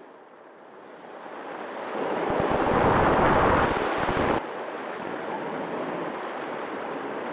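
Wind rushing over the microphone, swelling to a peak about three seconds in, dropping suddenly just after four seconds, then going on steadily at a lower level.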